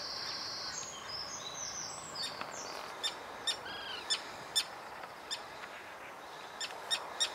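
Common tern calling overhead: a series of short, sharp, high calls, irregularly spaced through the second half, with one longer, arched call among them. In the first couple of seconds there is thinner high-pitched twittering.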